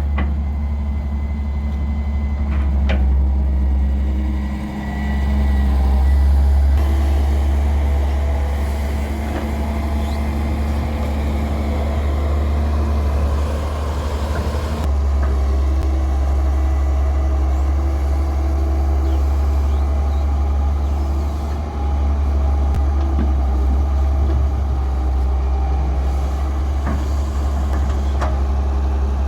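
Heavy diesel engines of a wheeled excavator and dump truck running steadily under load, with two brief dips in level.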